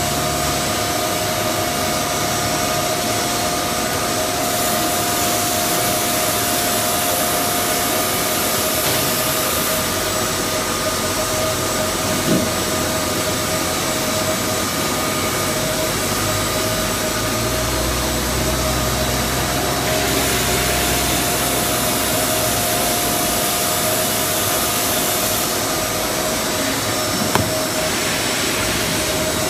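Semi-automatic HPL sheet cutting line running: a steady machine noise with a constant whine, its hiss growing and easing in stretches of a few seconds. Two short knocks, near the middle and near the end.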